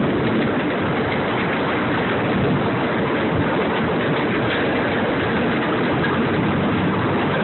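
Miniature ride-on train in motion: its engine running under a steady, even rumble from the moving train.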